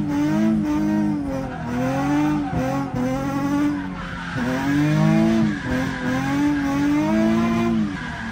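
Nissan 350Z's engine heard from inside the cabin during a drift run, its revs rising and falling about five times as the throttle is worked.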